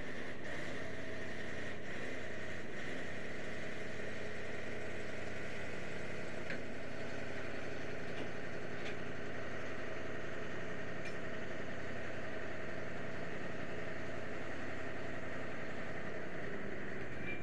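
Ship's engine running steadily, an even mechanical drone with a faint high whine over it.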